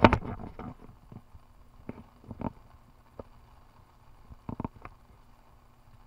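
Camera handling noise: a quick run of knocks and bumps at the start as the camera is moved, then a few scattered single taps over a faint steady background.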